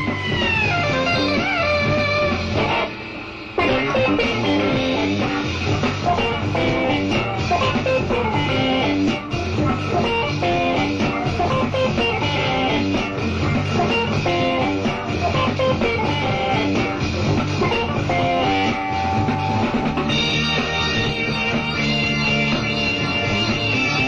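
Electric jazz-rock band playing live, with guitar, bass guitar, drums and keyboards, and a brief drop in volume about three seconds in.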